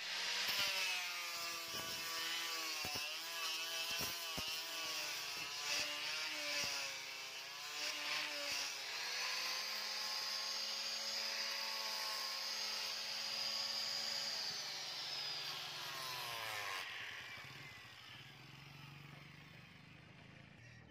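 Electric angle grinder with a sanding disc grinding a steel sword blade, its motor whine dipping and wavering under load for the first eight seconds or so, then running steady. About fifteen seconds in it is switched off and winds down, falling in pitch.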